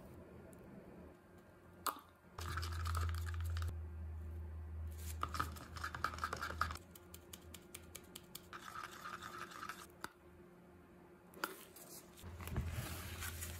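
Wooden stir stick scraping around the inside of a plastic cup while resin is mixed. It comes in four spells of quick, rhythmic strokes with short pauses between, and a light click or two.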